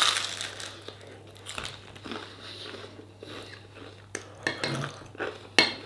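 A crunchy bite into toasted bread, followed by chewing. Near the end a metal spoon clicks a few times against a ceramic bowl.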